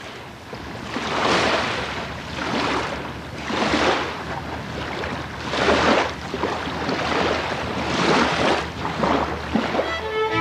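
Small waves washing up onto a lake shore, each wash swelling and fading every second or so.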